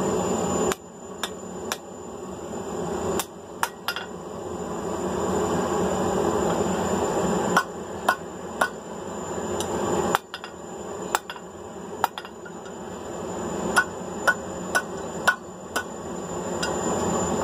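Hand hammer striking hot 3/8-inch round steel bar on an anvil, bending it just past a right angle into a hook. The blows come in short groups of two to five at about two a second, over a steady rushing noise that cuts off and builds back up a few times.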